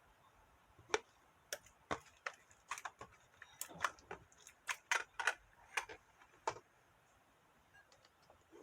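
Slime being worked by hand, giving an irregular run of sharp clicking pops for about five and a half seconds, then stopping.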